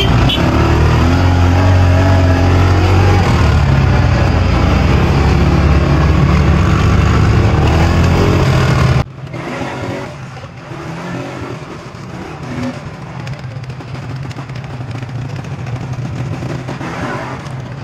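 A small motor vehicle's engine running loudly, its pitch shifting slightly, for about nine seconds. Then a sudden cut to a quieter stretch of engine and outdoor noise.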